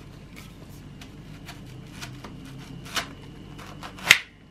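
Kitchen knife slicing through a banana blossom on a plastic cutting board: a run of small crisp cuts and ticks, with a sharper crack about three seconds in and a louder one near the end.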